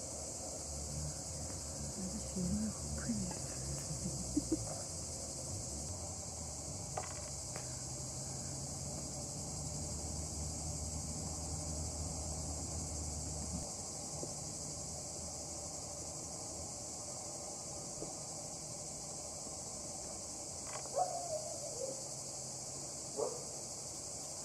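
Steady high-pitched insect chorus of crickets. A few light handling knocks come in the first few seconds, and a couple of short calls near the end, one falling in pitch.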